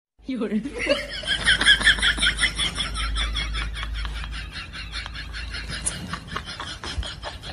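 High-pitched laughter in a rapid, even run of short pulses. It starts abruptly after a moment of silence and carries on, a little weaker, toward the end.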